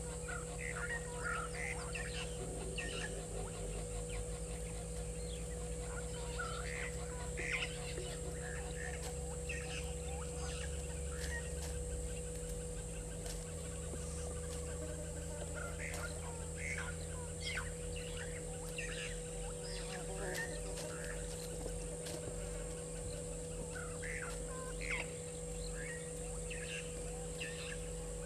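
Egyptian geese calling, a run of short, repeated calls scattered throughout, over a steady low hum.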